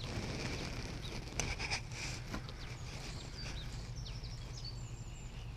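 Small birds chirping and calling with quick high notes, busiest in the second half, over a steady low hum. A few short clicks or rustles come in the first couple of seconds.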